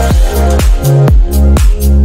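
Background electronic dance music with a steady four-to-the-floor kick drum, about four beats a second, under a sustained synth bassline.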